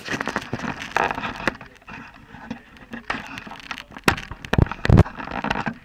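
Handling noise on a handheld camera's microphone as the camera is moved: rubbing, crackling and clicking, with several loud thumps about four to five seconds in.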